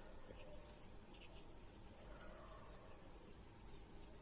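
Faint scratching of drawing strokes on paper, over a steady high-pitched whine.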